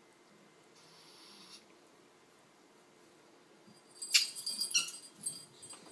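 Pet ferrets scuffling quietly, then about four seconds in one ferret lets out a quick run of sharp, high-pitched barks, the bark of an angry ferret.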